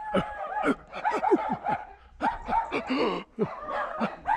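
A man's voice imitating animal calls to rouse dogs: a short held note, then quick runs of falling yelps, about five a second, that sound more like a chimpanzee.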